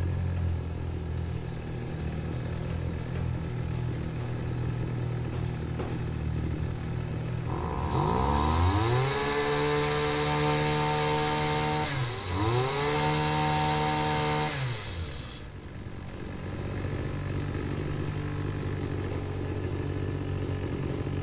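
Small petrol engine of a backpack sprayer running its pressure pump through a gearbox freshly fitted with new sealed bearings and grease. It idles, is revved up twice for a few seconds each time, and returns to idle; the sound has changed totally from the harsh noise it made before the repair.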